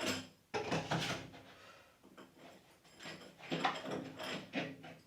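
Irregular scraping, sliding and knocking as plumbing pipes and fittings are handled and fitted together.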